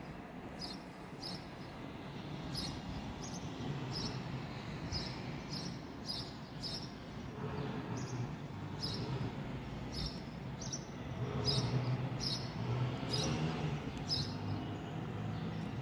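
Outdoor city ambience: a steady low rumble, as of distant traffic, that swells after about eleven seconds, with short high chirps repeating irregularly about every half second to a second.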